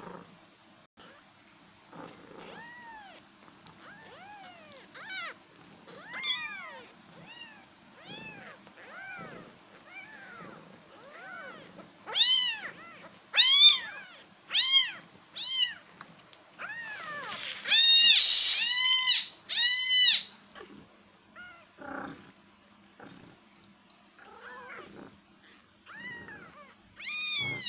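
Young kittens mewing over and over in short high cries that rise and fall, about one a second. The cries get much louder about halfway through, with two longer ones, then fade again.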